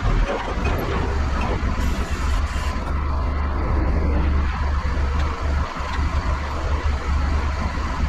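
CAT 938G wheel loader's diesel engine running hard, heard from inside the operator's cab; it picks up throttle sharply right at the start and then holds a deep, steady rumble as the loader moves.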